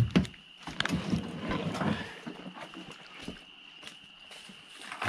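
Knocks and rustling from handling and movement, loudest in the first two seconds, over a steady high-pitched chorus of frogs.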